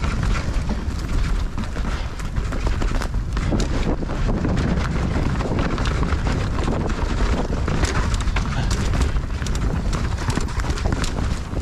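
Mountain bike riding fast down a rough dirt trail: a steady low rumble of tyres on the ground, with constant clicking and clattering of the chain and frame over bumps.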